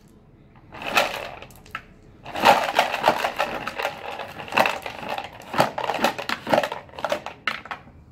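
Plastic bucket of a Little Tikes Ride N Dig ride-on toy excavator scraping and scooping loose gravel on a concrete path, in a series of irregular gritty crunches and scrapes.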